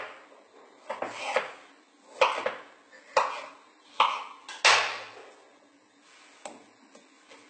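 Knife cutting an avocado on a wooden cutting board: a series of sharp knocks as the blade strikes the board, about eight in the first five seconds, then only a faint click or two as the pieces are handled.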